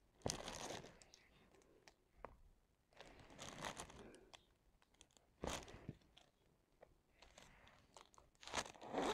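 Faint crinkling of a clear plastic cover sheet on a diamond painting canvas in several short bursts, with a few light taps of a drill pen pressing drills onto the adhesive.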